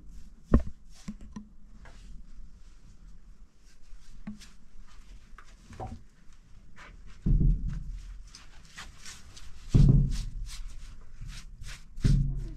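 A sharp knock about half a second in, then three dull thuds a couple of seconds apart, with faint scratching strokes between them.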